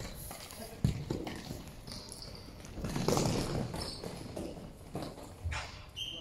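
Futsal ball kicked hard about a second in, a sharp thud that echoes in the sports hall, followed by players' footsteps and further ball touches on the hall floor. A referee's whistle starts right at the end.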